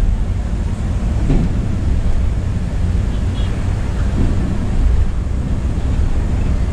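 Volvo B9R multi-axle coach running on the road, heard from the driver's cabin: a steady low rumble of engine and tyre noise. Faint short high beeps come about three and a half seconds in.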